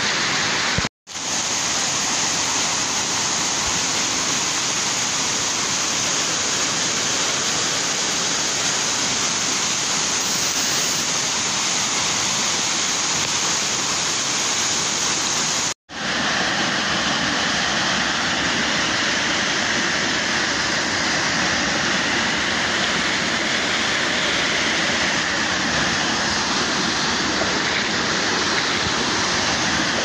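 Waterfall water pouring over rock ledges and splashing into a plunge pool: a loud, steady rush of noise. The sound drops out for a moment twice, about a second in and about halfway through.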